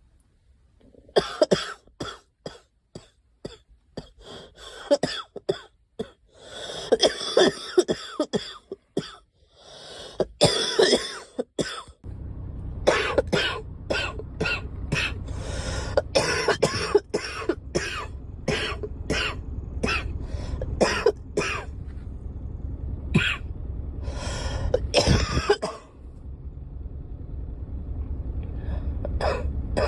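A girl coughing over and over in fits of short coughs, with pauses between the bouts. A steady low rumble joins underneath about twelve seconds in.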